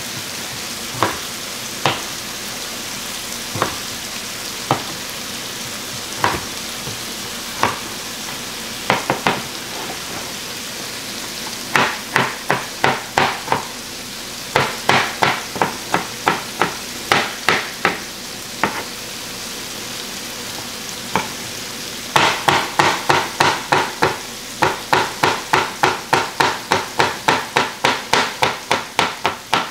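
A chef's knife chopping a potato on a plastic cutting board: single cuts spaced a second or more apart at first, then quick runs of about three chops a second. Under the chops, chicken frying in a pan sizzles steadily.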